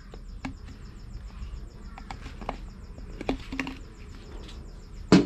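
Knife blade scraping and trimming the edge of a freshly drilled hole in a plastic sprayer tank, deburring the plastic shavings to leave a smooth hole for a tight seal: a series of small, irregular scrapes and clicks. A single louder thump comes near the end.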